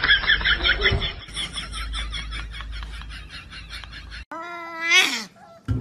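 A fast run of high-pitched pulses that fades out, then a sudden cut about four seconds in to one loud, drawn-out puppy cry that rises in pitch, like a young husky's howl or yowl.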